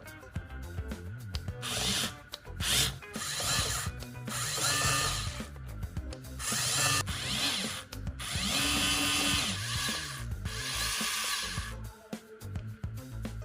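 Electronic bass-test music: a steady bass line under a run of loud, harsh buzzing noise bursts, each lasting a second or two, that drop away about a second before the end.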